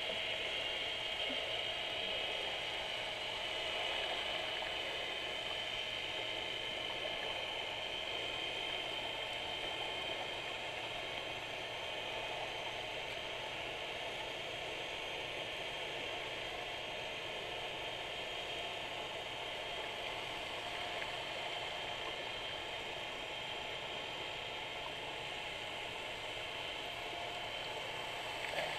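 Underwater ambient sound picked up through a GoPro Hero3's waterproof housing: a steady, muffled hiss with a fine crackle, and a faint steady high tone.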